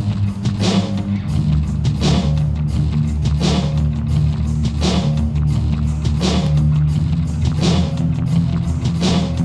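Background rock music with guitar over a steady drum beat, about one strong hit every second and a half.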